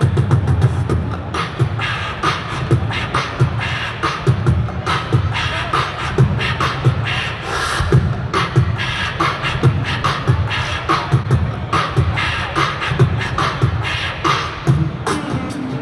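Human beatboxing amplified through a hand-held microphone and PA: a fast, busy rhythm of mouth-made kick, snare and hi-hat sounds over a deep bass pulse. It is unaccompanied, with no backing music.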